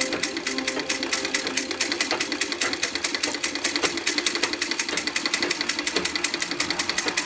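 Vintage Singer treadle sewing machine stitching at a steady pace, a fast, even clatter of needle strokes.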